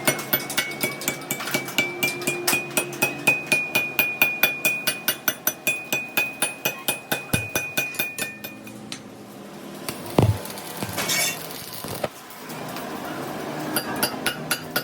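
Rapid, even hammer blows on metal, about five a second, with the struck steel ringing. The hammering stops for a few seconds, with one heavier thud and a short hiss, then starts again near the end.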